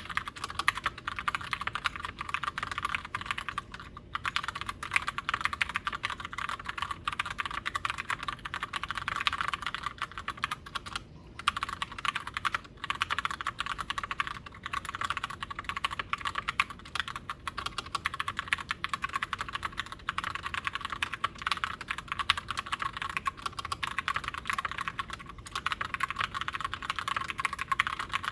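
Fast continuous typing on a Glorious GMMK White Ice TKL mechanical keyboard with tactile Gateron Brown switches, a dense stream of key clicks with brief pauses about 4 and 11 seconds in.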